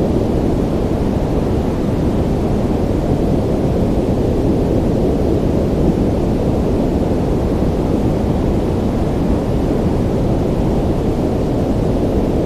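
Ocean surf as a steady low roar, even in level, with no single wave crash standing out.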